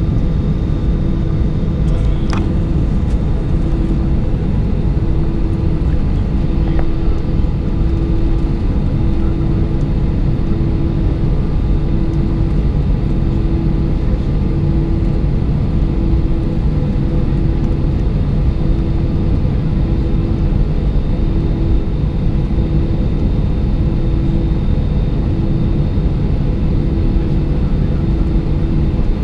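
Cabin noise inside an Airbus A320 on the ground: the steady low rumble of the idling jet engines and airframe. A low hum pulses on and off about every second and a half, with a faint click or two early on.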